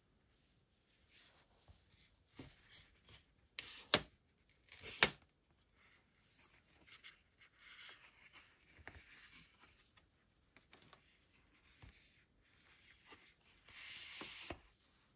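Paper packaging of an Apple Watch Series 8 box being opened: a few sharp crackling rips about four to five seconds in as the pull tabs are torn away, then soft paper rustling as the wrap is unfolded, with a louder rustle and slide near the end.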